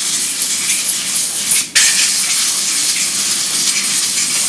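Compressed-air blow gun hissing as it blows off the machine vises. It stops for a moment about two seconds in, then comes back on.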